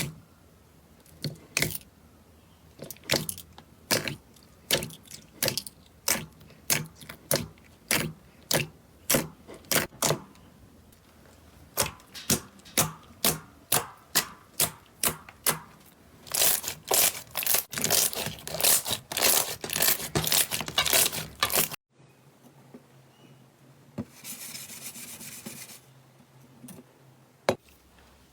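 Slime being handled and squeezed by hand, giving sharp crackling pops one or two a second. They quicken into a dense run of crackles. After a sudden cut there is a short soft hiss, then a few more pops.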